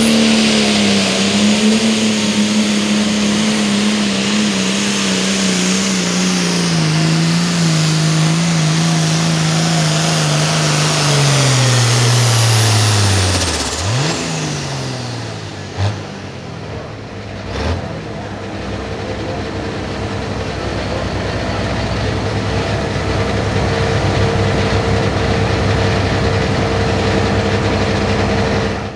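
Turbocharged diesel engine of a Hot Farm class pulling tractor at full throttle under load, its pitch sagging slowly, with a high turbo whistle. About 13 seconds in, the throttle comes off and engine and turbo wind down. Two quick throttle blips follow, then the engine idles steadily.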